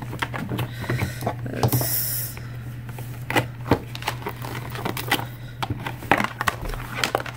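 Cardboard product box being handled and its insert slid out: light taps, knocks and rustles, with a brief sliding scrape about two seconds in.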